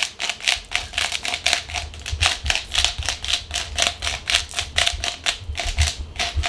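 Hand-twisted salt grinder grinding pink Himalayan salt crystals in quick, even rasps, about four or five a second.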